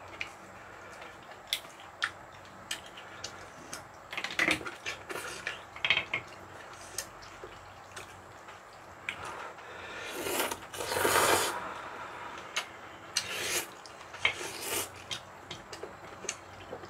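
Eating sounds: frequent sharp clicks of chopsticks and spoons against bowls, and several noisy noodle slurps, the longest and loudest about ten seconds in.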